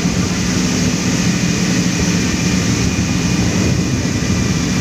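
Speedboat engine running steadily at cruising speed, a constant low drone, mixed with wind and water rushing past the moving boat.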